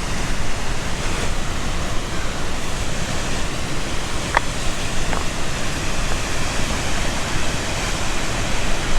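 Steady rushing noise of falling water from one of the Dynjandi cascades, with two faint short ticks about halfway through.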